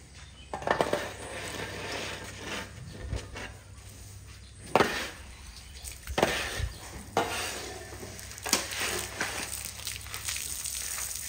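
Metal shovel scraping across a wet concrete floor, a series of separate scrapes and knocks, the loudest about five seconds in.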